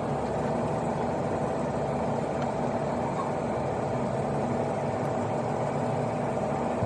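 Engine running steadily at idle, a constant even hum.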